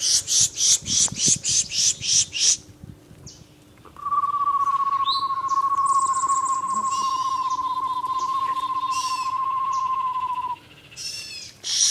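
Birds calling: a fast run of about a dozen loud, high chirps, then a long, steady, even trill lasting about six seconds with softer high calls over it, and more high chirps near the end.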